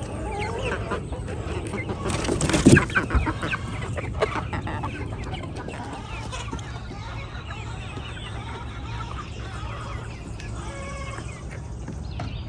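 Flock of chickens clucking and calling, with one louder, harsher burst about two and a half seconds in.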